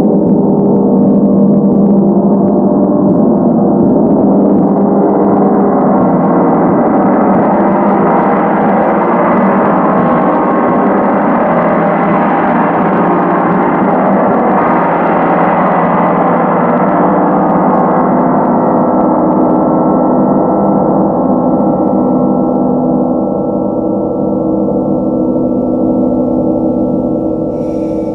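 A 100 cm Feng gong played with mallets, its dense shimmering ring growing brighter through the middle and then easing back to a lower, darker hum as it rings on near the end.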